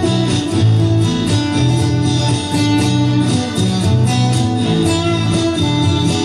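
Acoustic guitar strummed in a steady rhythm, layered over looped guitar parts playing back.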